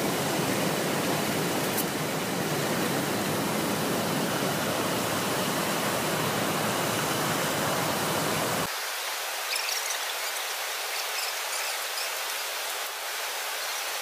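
Steady rushing of stream water, full and deep for the first eight seconds or so, then abruptly thinner and higher, with faint high chirps in the last few seconds.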